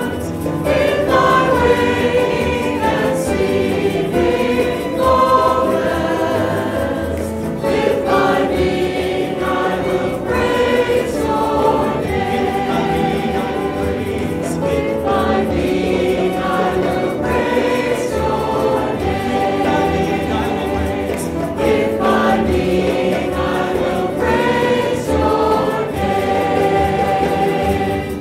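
Choir singing a Christian hymn with instrumental accompaniment.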